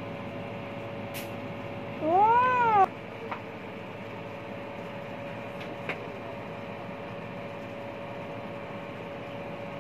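A cat gives a single meow about two seconds in, under a second long, rising and then falling in pitch. A steady hum runs underneath.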